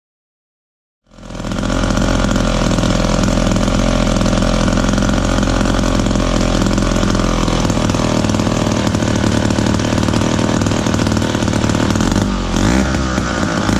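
David Bradley 360 gear-drive two-stroke chainsaw engine running steadily. It comes in abruptly about a second in. Near the end there is a brief dip in loudness and a bend in pitch.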